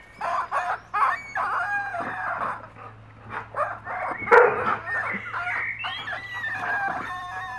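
Rubber squeaky duck squeaking over and over as a golden retriever chews and squeezes it, with one especially loud squeak about four seconds in.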